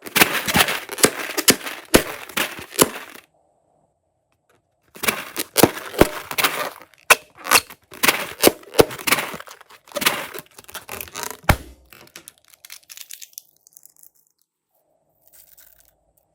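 Slime being worked by hand: dense runs of sharp crackles and clicks in bursts, a pause about three seconds in, then more bursts that thin out into scattered clicks near the end.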